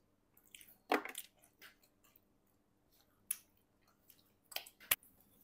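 Close-miked chewing of pizza: sparse wet mouth clicks and smacks with quiet gaps between them, the loudest about a second in and near the end.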